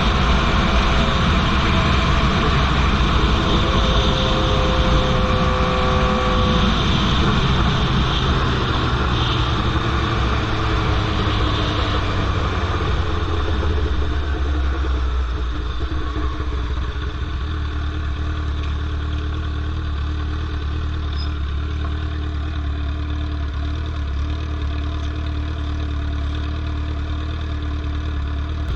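The straight-piped inline-four engine of a 2003 Yamaha R1 running continuously. Its pitch falls over the first several seconds, then it settles into a steady, lower note from about halfway through.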